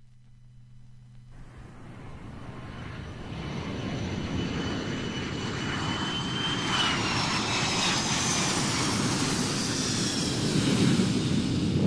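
An airplane flying past, growing steadily louder from near silence, with a high whine that drops in pitch about seven seconds in.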